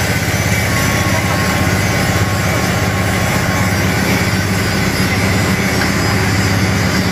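Backhoe's diesel engine running steadily at idle.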